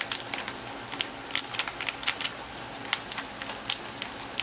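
Pork in soy sauce and vinegar sizzling in a pot on an electric hot plate: irregular sharp crackles and pops, a few a second, over a steady hiss.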